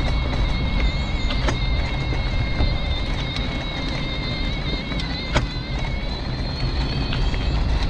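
Mobility scooter on the move: a steady high electric-motor whine over a low rumble of wheels on tarmac, with occasional sharp clicks or knocks, the loudest about five seconds in.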